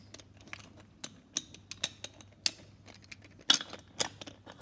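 Wooden toy train engine and tender clicking and clacking against wooden track as they are handled, set on the rails and pushed together. Irregular sharp taps, the loudest about three and a half seconds in.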